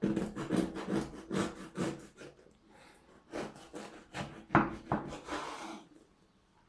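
A knife sawing back and forth through a loaf-bread sandwich in a run of rasping strokes, with a short pause about halfway.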